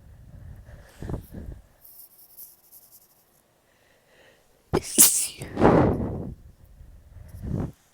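Small sneezes: a sudden sharp sneeze about five seconds in, with further sneezing bursts after it and softer breathy sounds before.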